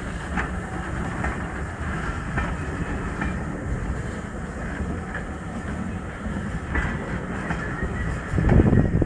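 BR Mark 1 passenger coaches rolling slowly past on jointed track: a steady low rumble with wheels clicking over the rail joints. A louder low rush comes in near the end.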